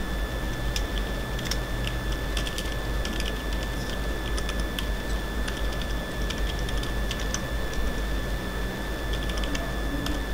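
Computer keyboard being typed on in scattered runs of keystrokes, over a steady electrical hum and a faint high-pitched whine.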